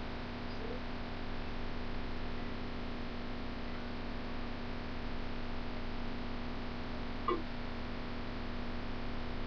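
Steady low hum over a background hiss: room tone, with one short faint sound about seven seconds in.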